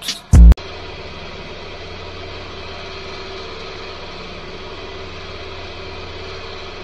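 A loud snatch of music cuts off about half a second in. Then a hydraulic press's pump motor runs with a steady, even hum while the ram presses down.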